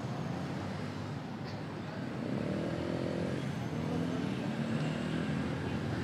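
City street ambience: a steady hum of road traffic, with a vehicle passing closer and a little louder from about two seconds in.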